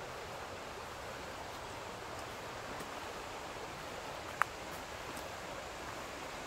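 Steady rush of river water running over shallow riffles, with one short sharp click a little past four seconds in.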